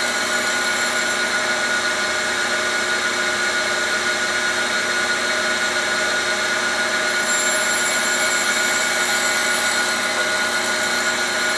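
Cylindrical grinder running, its wheel taking a grinding cut along a shaft: a steady whir with several steady tones through it.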